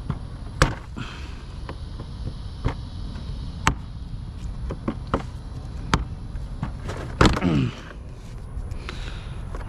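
Plastic ATV body panels and their clips being worked loose and handled: scattered sharp clicks and knocks about once a second, with a louder clatter and a short creak of flexing plastic about seven seconds in.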